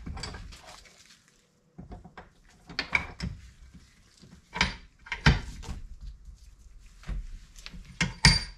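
Rubber mallet tapping a new needle roller bearing into the bore of a Classic Mini top suspension arm held in a vise, a few separate knocks at irregular intervals, to get the bearing started before it is drawn home with threaded bar.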